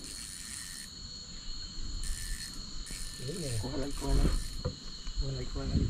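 Insects chirring from the riverbank: a steady high-pitched chorus, with a louder, hissier layer that comes and goes several times. Quiet voices talk briefly in the middle and near the end.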